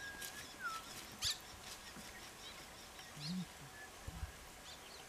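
Quiet open-field ambience with a few faint, short bird chirps and a thin high note that drops in pitch about half a second in.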